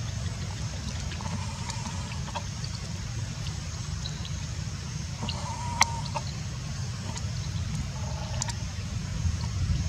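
Three brief animal calls over a steady low rumble, with a sharp click about six seconds in.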